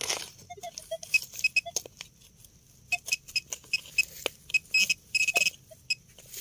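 Metal detector pinpointer giving short high beeps, at first scattered, then coming more often from about halfway, as it is probed through dug soil, mixed with clicks and scrapes of digging: it is picking up a metal target, here a small coin.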